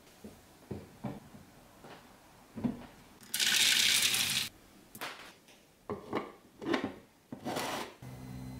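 Dry kibble poured from a bowl into a 3D-printed plastic hopper, a dense rattling rush lasting about a second. Before and after it come separate clicks and knocks of printed plastic parts being handled and fitted together, and a steady low hum begins near the end.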